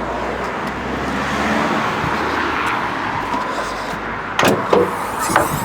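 A car bonnet being released and opened: steady outdoor background noise, then two sharp clunks near the end from the bonnet catch and lid.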